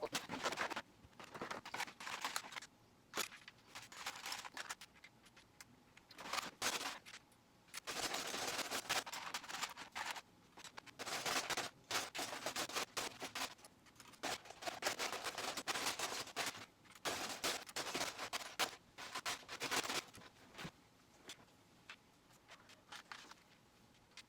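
Plastic Lego bricks clicking and clattering as they are picked through by hand and snapped together. It comes as uneven bursts of sharp clicks, with a few longer rattling stretches.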